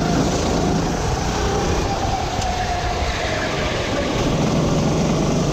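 Sodi RT8 rental kart's four-stroke engine heard from the driver's seat under race running. The engine note sags through a tight hairpin in the middle and picks up again near the end.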